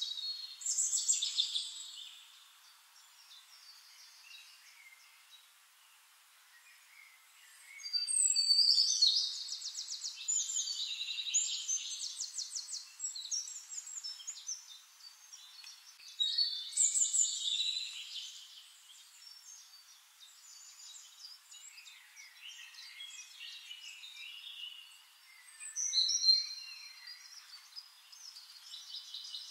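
A songbird singing in bouts of fast, high trills, with quieter chirps between the bouts.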